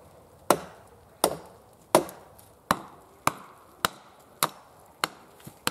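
Small hatchet chopping dead wood: about nine sharp blows in steady rhythm, roughly one and a half a second, growing lighter and a little quicker towards the end.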